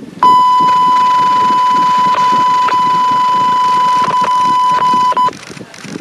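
A single loud, steady electronic beep held at one high pitch for about five seconds, cutting off abruptly.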